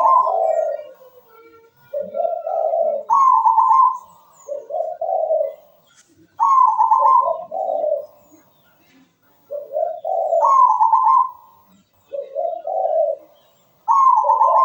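Zebra dove (perkutut) singing its cooing song: a run of phrases about a second long with short pauses between, higher notes alternating with lower, deeper ones.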